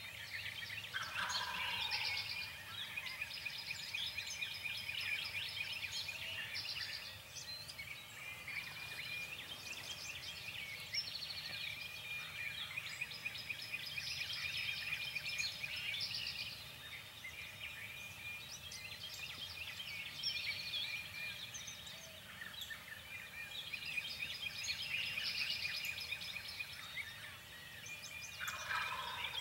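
Wild turkey gobbling twice, a falling, rattling call about a second in and again near the end, over steady chirping of songbirds.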